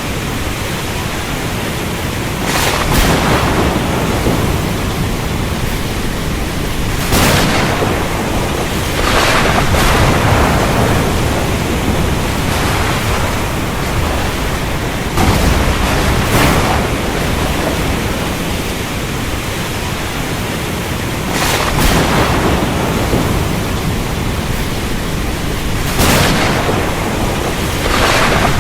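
Steady heavy rain, with sharp claps of thunder breaking in about seven times, every few seconds.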